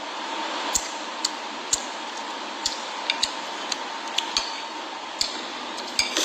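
Metal spoon clinking and scraping against a ceramic bowl while someone eats: about a dozen short, sharp clinks at uneven intervals over a steady background hiss.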